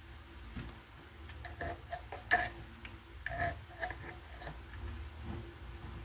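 A string of light clicks and taps, a dozen or so, scattered through the first few seconds with the loudest a little over two seconds in, over a low steady hum.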